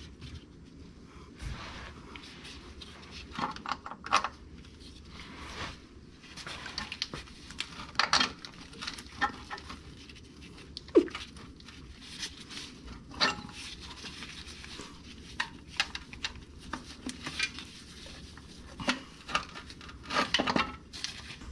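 Scattered light metallic clicks, taps and knocks of a replacement starter motor and nearby parts being handled and worked into place by hand, with one short squeak about halfway through.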